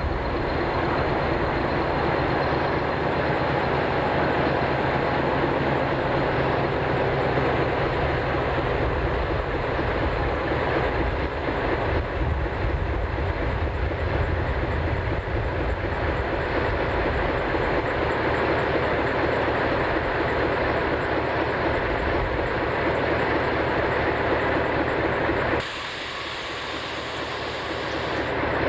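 Narrow-gauge diesel locomotive and its train of passenger coaches, the engine running with a steady dense rumble. Near the end the low rumble falls away and the sound turns thinner and hissier.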